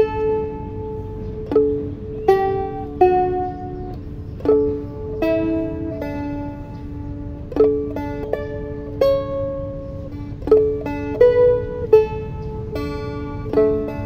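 Seagull Merlin stick dulcimer with a spruce top, strummed with the fingers: a slow melody picked out on the top string over two steady drone notes, each strum ringing on.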